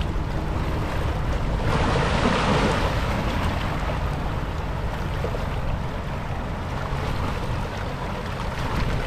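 Steady wind buffeting the microphone over small waves lapping on a rocky shore, with a louder wash of water about two seconds in.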